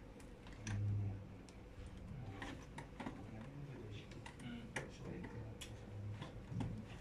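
Scattered small clicks and taps as hands work the wires, terminals and parts of a motor-control trainer board.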